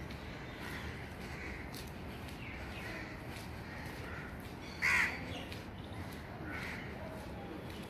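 Crows cawing repeatedly, with one much louder caw about five seconds in, over a steady low rumble.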